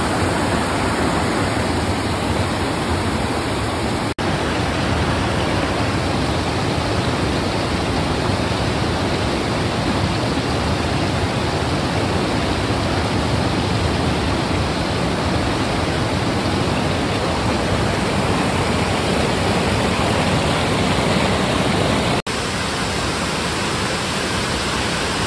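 Steady rush of white water from a boulder-strewn rainforest river and waterfall, broken by two brief dropouts, about four seconds in and near the end.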